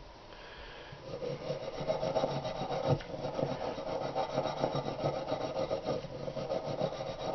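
Brass-bristle gun-cleaning brush scrubbing lightly and quickly back and forth over the carbon-fouled steel head of an AK gas piston, a dense run of scratchy strokes starting about a second in.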